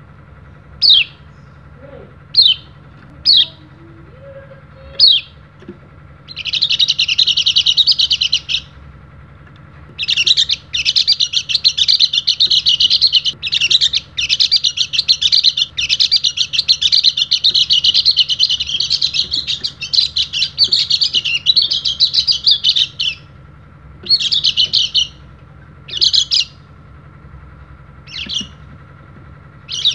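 Yellow-breasted white-eye (pleci dakun) giving four short single chirps, then long runs of fast, high twittering song. The longest run lasts about thirteen seconds, and shorter bursts follow near the end.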